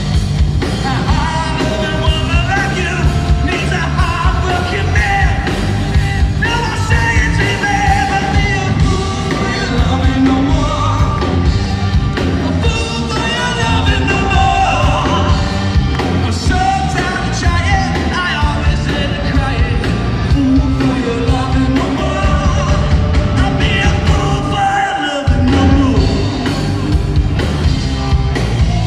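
Live rock band playing loudly: drums, bass guitar and electric guitar under a sung lead vocal, recorded from the crowd. The drums and bass drop out briefly near the end.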